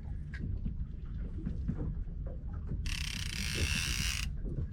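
Fishing reel ratcheting for about a second and a half in the second half, starting and stopping abruptly, as line is worked on a hooked conger eel, over a steady low rumble.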